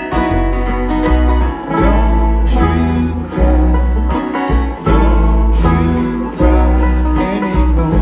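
Bluegrass band playing live through a PA: banjo and acoustic guitar picking over upright bass notes that change about once a second.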